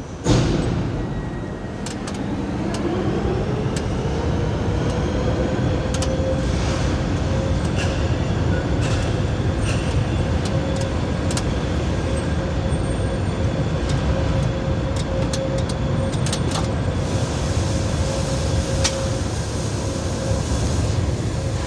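A machine's motor winds up with a rising whine about two seconds in, then runs at steady speed over a loud rushing noise, and starts winding down right at the end. A thump comes just after the start.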